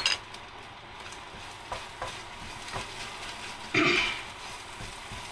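A wooden spatula stirring and scraping mashed boiled potatoes in a nonstick frying pan over a gas flame, with a low, steady sizzle of oil. A sharp clatter comes right at the start, then a few light knocks on the pan and a louder scrape about four seconds in.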